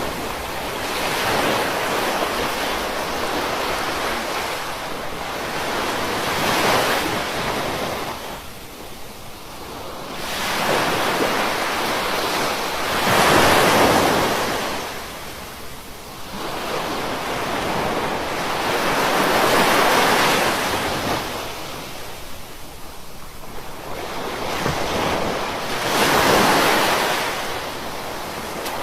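Ocean surf washing onto a beach, the rush of each breaking wave swelling and falling back about every six to seven seconds.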